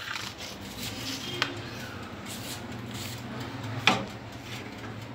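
Metal baking tray being handled and slid into a countertop electric oven: soft scraping of metal on metal, with two sharp knocks, about a second and a half in and again near four seconds.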